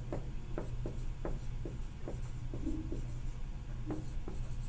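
Marker writing on a whiteboard: short scratchy strokes, about two to three a second, as words are written by hand, over a steady low hum.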